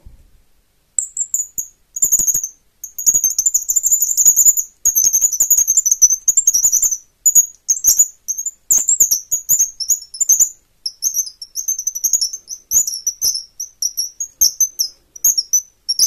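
Wooden bird call with a plated steel eye bolt being twisted against the wood, giving high squeaky bird-like chirps in quick runs. It starts about a second in, the later chirps coming shorter and choppier. The bolt is pressed too hard, making the call clumsy rather than a clean birdsong imitation.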